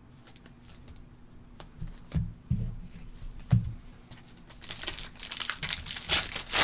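Trading-card pack wrapper being handled, torn open and crinkled. A few soft knocks come first, then dense crackling crinkling builds from about four and a half seconds in.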